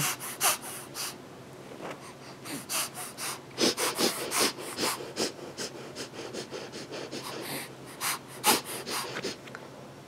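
A five-month-old baby sniffing through her nose over and over, in many short, quick sniffs that come in irregular clusters. It is a playful game of sniffing, not a sign of a cold.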